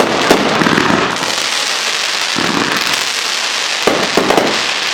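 Backyard fireworks going off: a dense, steady crackling, with a few sharper bangs at the start and again about four seconds in.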